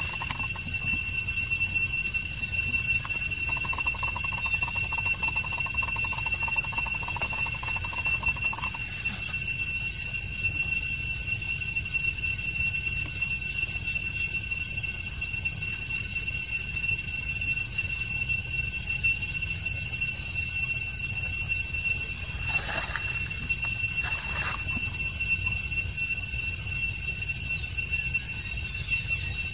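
Cicadas droning in the forest canopy as one steady, high-pitched whine. A fainter buzz joins in for about five seconds from around four seconds in.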